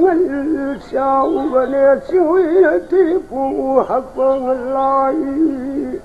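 Background music: a single melody line with a wide, wavering vibrato, moving between held notes and steps in pitch.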